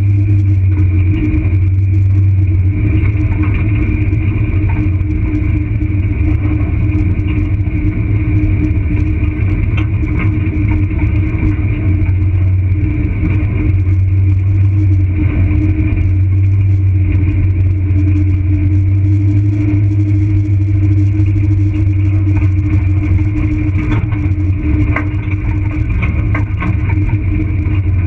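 Vehicle driving at a steady speed on a dirt road: a continuous low engine drone with tyre and road noise, and a few clicks and rattles near the end as the surface turns rough and rocky.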